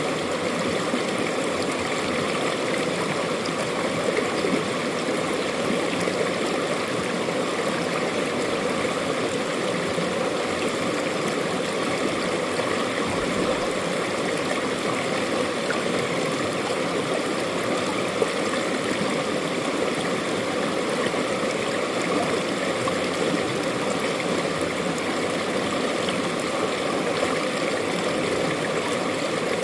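Mountain valley stream flowing over rocks: a steady, even rush of water with gurgling.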